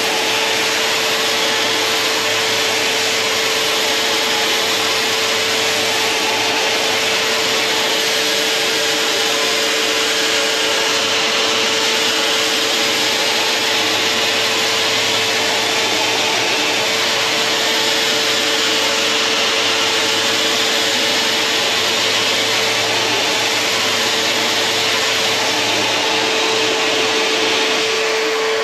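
A homemade scarf-cutting machine runs continuously as its sanding disc cuts a fine scarf on thin aircraft plywood. Vacuum cleaners run with it, one holding the sheet down by suction and one extracting the dust, and the machine has a steady whine. A low hum from the power drill on the machine comes and goes.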